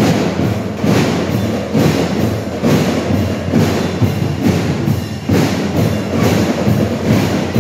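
Dance music with a strong, steady percussive beat, the heavy beats falling about once a second.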